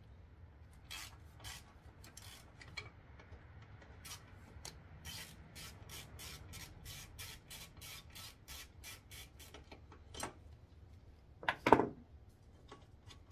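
Quarter-inch ratchet with a 12 mm socket backing out a bolt, its pawl clicking in an even run of about four clicks a second. A single louder metal clunk comes near the end.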